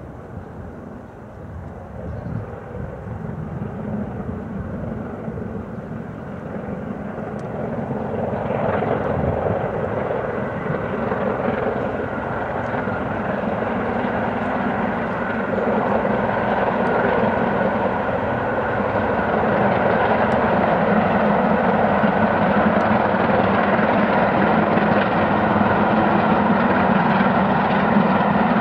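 Steam locomotive 70013 Oliver Cromwell, a two-cylinder BR Standard Class 7 'Britannia' Pacific, running fast with a steady exhaust beat that grows louder as the train approaches.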